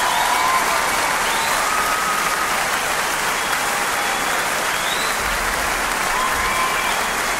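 A crowd applauding steadily, with a few faint whistles or calls over the clapping.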